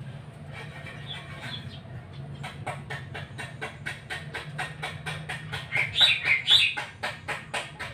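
Oriental magpie-robin calling: a fast, even run of sharp ticking notes, about five a second, with a loud burst of chirps about six seconds in. A steady low hum lies under it.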